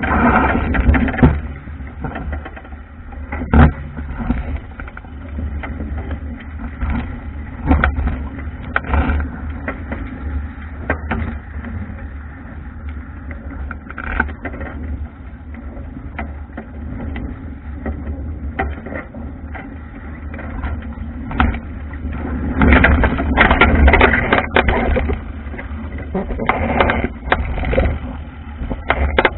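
Wind buffeting the microphone of an action camera on an Albacore sailing dinghy beating upwind, a steady low rumble under water rushing past and slapping against the wooden hull. Irregular knocks and bursts of spray come through, with a louder run of them a little past three-quarters of the way through.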